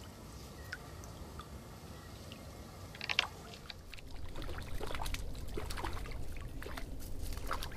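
Water splashing as a hooked fish thrashes at the surface on a float pole line: one sharp splash about three seconds in, then a run of smaller, quicker splashes.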